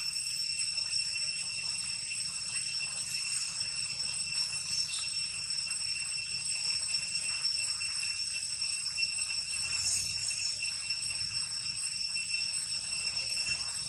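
A steady, high-pitched insect drone, an unbroken whine that holds the same pitches throughout, with a few faint rustles in the leaf litter.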